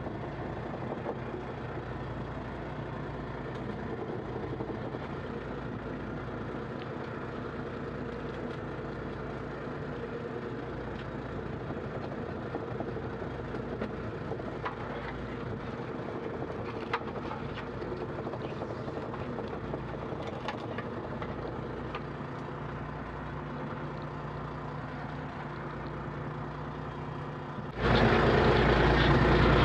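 Small fishing boat's engine running steadily while a trammel net is hauled, with a few light clicks from the gear. Near the end the noise jumps suddenly much louder.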